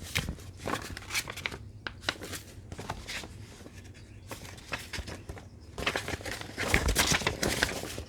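Paper being handled and rustled on a craft table, with scattered light taps and clicks; the rustling grows louder and busier near the end.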